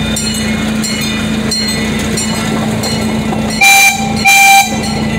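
A miniature amusement-park train running with a steady hum, and its horn sounding two short toots a little over half a second apart, near the end.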